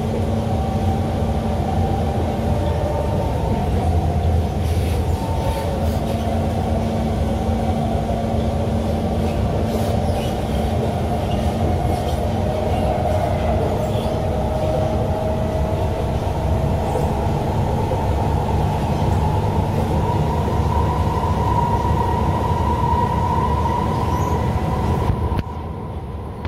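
Cabin running noise of an SMRT Kawasaki C151 metro train under way: a steady rumble of wheels on rail, with a motor whine that wavers and slides in pitch. The sound drops away abruptly for about a second near the end.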